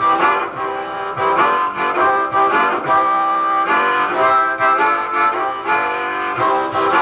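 Harmonica playing an instrumental break, several notes sounding together and changing every half second or so.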